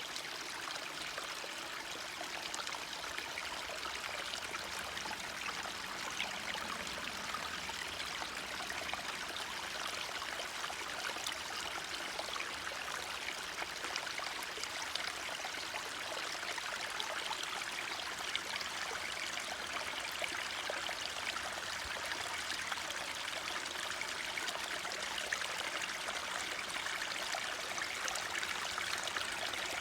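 Forest stream running steadily, a continuous rush of flowing water with no breaks.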